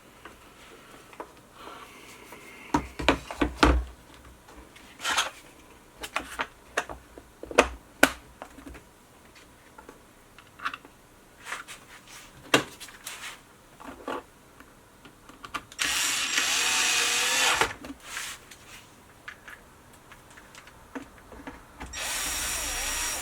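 Knocks and clicks of a power bank being handled and pressed into place in a box, with two rough ripping sounds of about a second and a half each, one past the middle and one near the end, as the mounting tape is pulled.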